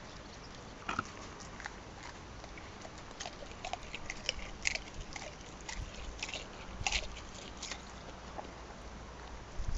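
A chocolate Labrador chewing an egg with its shell: irregular crisp crunches and cracks as the shell breaks between its teeth, thickest through the middle of the stretch.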